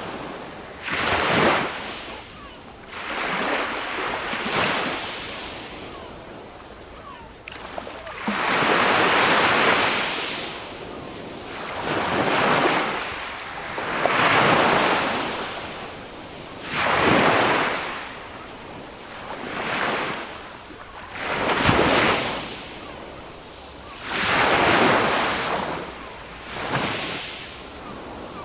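Small sea waves breaking on a sandy beach and washing back, one after another every two to three seconds, each a rising and falling rush of surf. Wind buffets the microphone now and then.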